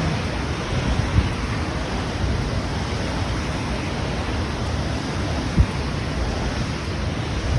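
Steady rushing noise with wind buffeting the microphone, giving a low, fluttering rumble and two brief low thumps, one about a second in and one past the middle.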